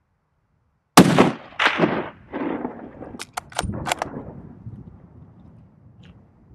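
A hunting rifle shot about a second in, followed by two more loud decaying reports over the next second and a half that roll back off the mountainside. A quick run of four sharp clicks follows near the middle before the sound fades out.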